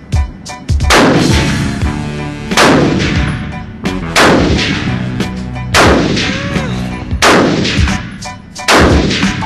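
Semi-automatic 7.62 NATO rifle shots, a loud shot roughly every one and a half seconds, each with a ringing tail, and fainter cracks in between.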